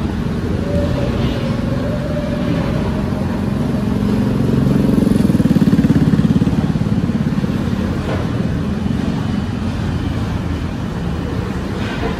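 Construction-site and street engine noise: heavy engines running steadily, with one engine growing louder and pulsing about four to six seconds in, then easing off.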